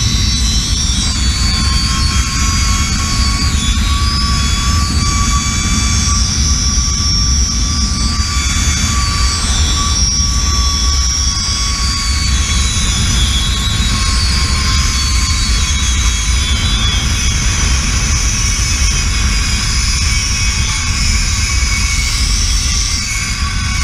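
Zipline trolley's pulley wheels running fast along the steel cable, a steady high whine, over heavy wind rumble on the microphone. The whine dips slightly in pitch near the end as the ride slows toward the platform.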